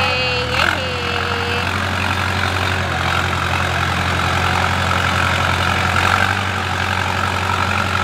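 Diesel engine of an XCMG backhoe loader running at a steady low speed as the machine drives off a trailer ramp. A brief wavering high call sounds over it in the first second and a half.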